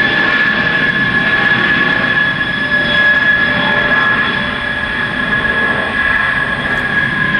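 Military jet aircraft flying overhead, its engines giving a loud, steady high-pitched whine over a rushing rumble.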